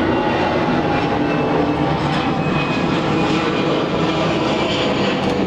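Loud, steady mechanical drone, a constant hum and hiss like a motor or engine running, with no change in level.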